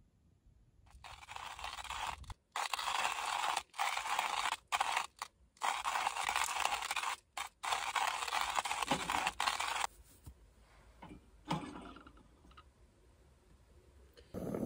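Hand-cranked coffee grinder grinding beans: a dense, gritty crunching, broken by several brief gaps, that stops about ten seconds in. After that come quieter handling sounds and a soft knock.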